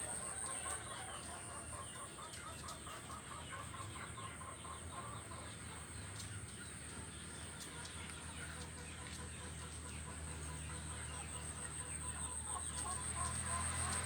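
Chickens clucking, with many short repeated calls, over a steady high-pitched whine.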